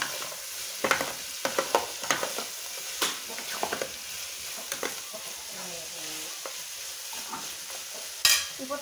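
Metal spoon stirring and scraping around an aluminium saucepan while onion, garlic, pork fat and fried banana sizzle in the fat, with a steady hiss under many short scrapes. A louder knock comes near the end.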